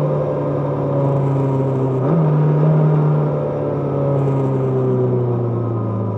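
Kawasaki GPZ550's air-cooled inline-four engine under way, its revs falling steadily as the bike slows, with a brief rise in pitch about two seconds in.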